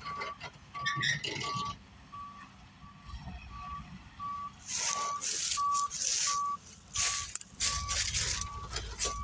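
A vehicle's reversing alarm beeping steadily, about two beeps a second, as a truck and trailer back up. In the second half, loud bursts of hissing noise and a low engine rumble join in.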